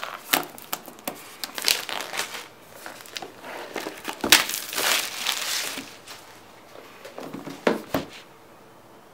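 Plastic shrink-wrap being peeled off a new laptop box and crumpled: crinkling and crackling in uneven bursts, with a sharp knock about four seconds in.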